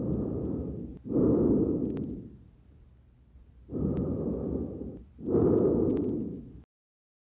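Lung sounds heard through a stethoscope in a simulated pneumonia auscultation: two full breaths, each inhalation followed by a longer, louder exhalation, with a few faint sharp clicks.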